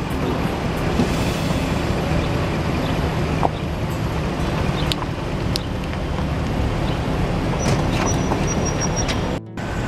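An engine running steadily, with scattered light clicks and knocks over it; the sound drops out briefly near the end.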